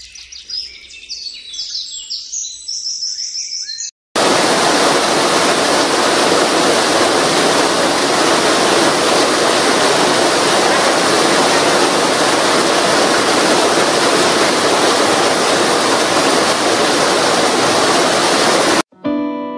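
Birds chirping for about four seconds, then an abrupt cut to a waterfall in a rocky mountain gorge: a loud, steady rush of falling water that stops suddenly near the end, where guitar music comes in.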